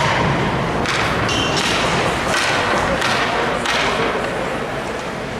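Ice hockey play in an arena: a series of sharp knocks and thuds of pucks, sticks and bodies against the boards over a steady background of rink noise.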